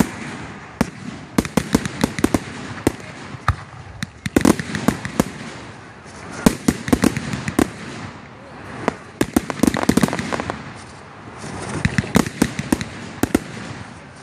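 Aerial fireworks going off: rapid clusters of sharp bangs and crackling pops, one volley every two seconds or so, with a constant background hiss between the volleys.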